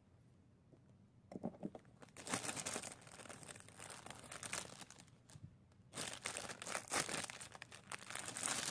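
Packaging crinkling and rustling as it is opened by hand, in irregular bursts that start about a second in and grow louder near the end.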